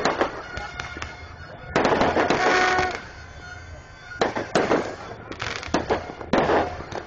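Fireworks going off in repeated bursts of bangs and rapid cracks, with a longer dense volley about two seconds in and several more bursts in the last few seconds.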